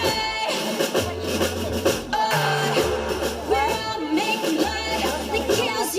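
Pop music with singing over a repeating bass beat.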